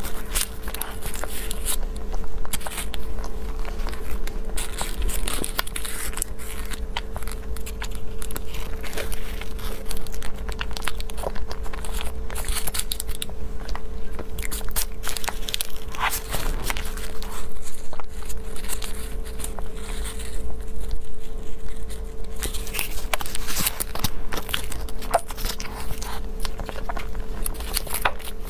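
Close-miked chewing and wet mouth sounds of a person eating a soft cream-filled pastry, many small irregular clicks over a faint steady hum. Near the end a paper cake cup crinkles as it is peeled off the next pastry.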